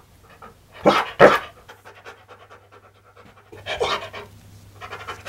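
Siberian Husky–Malamute cross "talking": a pair of short vocal grumbles about a second in and another near four seconds, with panting in between.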